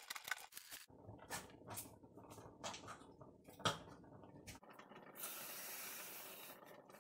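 Plastic clicks and knocks of a Keurig single-serve coffee maker being handled, its handle and lid lifted open and a coffee pod set in, the loudest knock a little before four seconds in. Just after five seconds in comes a short steady hiss.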